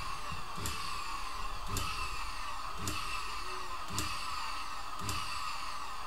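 Vacuum-cleaner motor of a home-built motor-generator rig running steadily with a high whine, with a sharp knock about once a second; the builder says the unit needs fastening down because it bangs.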